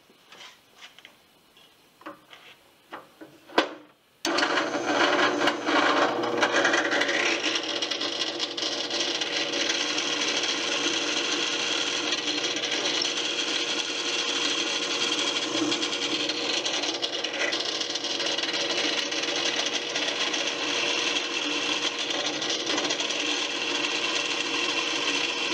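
Drill press boring into a wooden seat-frame rail: after a few light clicks and a sharp knock, the motor starts about four seconds in and then runs steadily with a constant hum while the bit cuts the wood.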